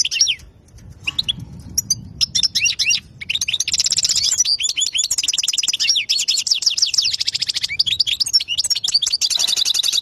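European goldfinch singing a fast, twittering song of rapid trills and repeated notes. It breaks off for about a second near the start, then sings on without pause.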